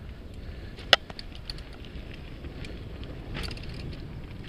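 Mountain bike rolling down a rocky dirt trail: tyres over dirt and loose stones with small rattles, and wind rumbling on the camera microphone. One sharp knock about a second in is the loudest sound.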